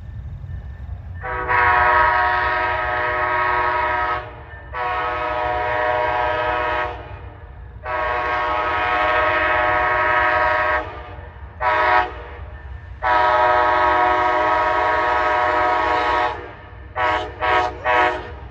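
Amtrak Siemens Charger locomotive's air horn sounding a multi-note chord in the grade-crossing pattern: three long blasts, one short and a final long one, then three quick short toots near the end. A low rumble from the approaching train runs underneath.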